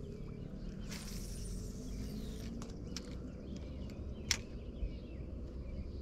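Outdoor ambience on the water: faint birds and insects over a steady low rumble, with a few small clicks and one sharp tap about four seconds in.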